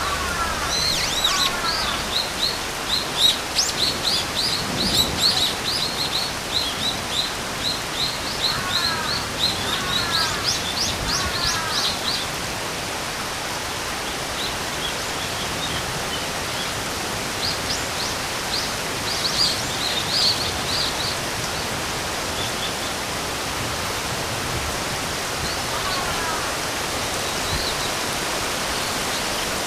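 Steady rain hiss with birds calling over it: fast runs of high chirps through the first half and again briefly later, plus a few short falling calls in twos or threes.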